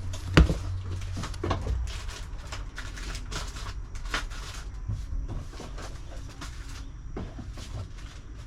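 Rummaging through a box of books and small objects: repeated knocks, clacks and rustles of things being picked up and set down, the loudest a knock just under half a second in.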